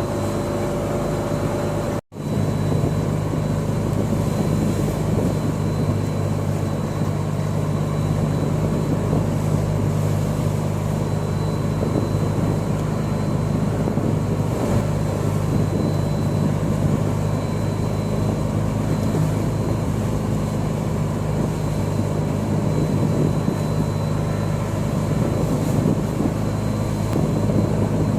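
A fishing boat's engine running steadily with a low, even drone, briefly cut off about two seconds in.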